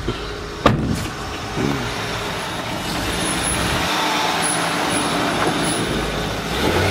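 A car door shuts with a sharp thud less than a second in. Then a Honda Odyssey minivan's J-series V6 pulls away, its engine and tyre noise building gradually.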